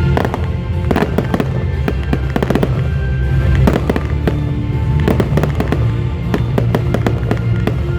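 Fireworks going off in many irregular bangs and crackles, over music with a heavy bass line.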